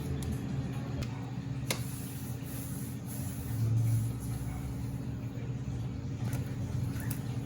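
Steady low machine hum, with a few light clicks and a brief louder swell in the hum about halfway through.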